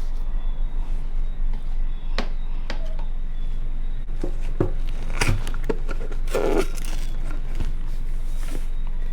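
Steady low electrical hum with scattered knocks and clinks of kitchen containers and utensils being handled, and a short rustling scrape about six and a half seconds in.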